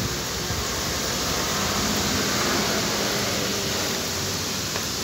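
Steady rushing outdoor noise, even and unbroken, with no distinct events.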